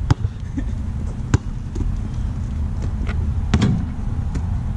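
A basketball bouncing on the court as it is dribbled: a handful of sharp, irregularly spaced bounces over a steady low rumble.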